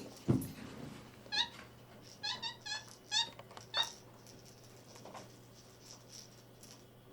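A thump, then white-faced capuchin monkey calls: about five quick bursts of short, high-pitched chirps in the space of a few seconds.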